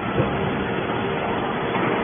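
Scrap metal baler running: a steady machine noise with a constant hum-like tone, and a single knock a moment after the start.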